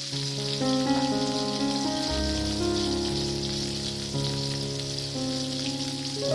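Soft instrumental background music with held notes that change in steps, over a steady hiss.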